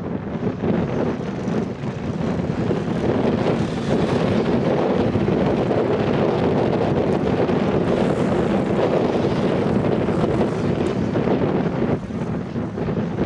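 Several motocross bikes' engines revving as the bikes race and jump, with wind buffeting the microphone.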